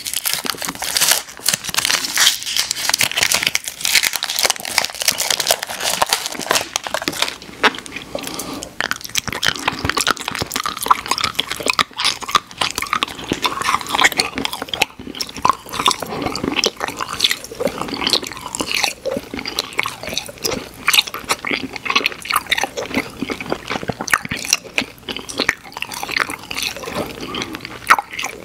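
Close-miked chewing and biting of candy, crisp crunching at first that turns to softer, wetter chewing.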